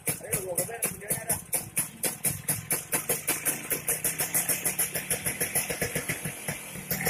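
Vespa scooter's single-cylinder two-stroke engine running at idle after a service, with an even, pulsing beat that quickens slightly near the end.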